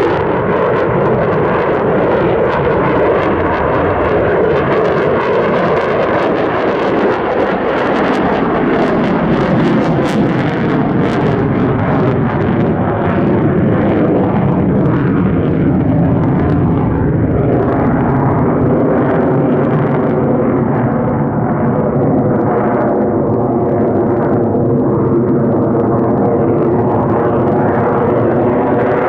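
F-35A fighter jet's single F135 turbofan engine, heard as loud, continuous jet noise with crackle, its tone sweeping up and down as the jet moves through its demo manoeuvres.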